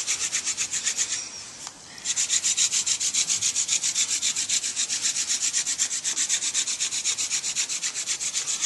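Blue vervain spindle being spun by hand in a cedar hearth board (hand-drill friction fire), wood rubbing on wood in a fast, even rhythm of about eight strokes a second. The strokes break off for nearly a second about a second in, then resume.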